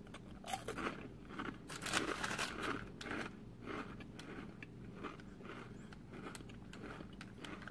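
A person biting into and chewing a crunchy, hollow banana coconut wafer roll: dense crackling crunches over the first few seconds, thinning to quieter, sparser chewing crunches.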